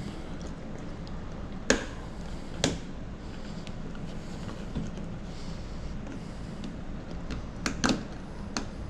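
Sharp clicks and taps of small hard tools and parts being handled during a tablet repair, over a steady low hum. There are two separate taps about two seconds in and three in quick succession near the end.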